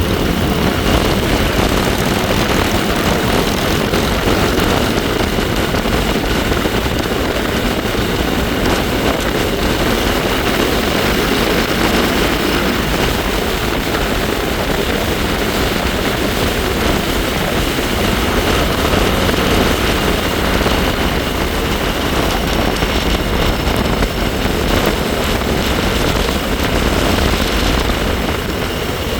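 Steady wind rushing over the microphone while riding, with the bike's own drone and a faint steady high whine underneath.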